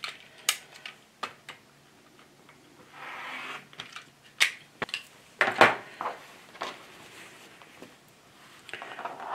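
A rotary cutter and acrylic ruler handled on a cutting mat: a string of light clicks and knocks, a short rasp about three seconds in as the blade runs through cotton fabric, and the loudest knocks about halfway through. Cotton strips rustle near the end.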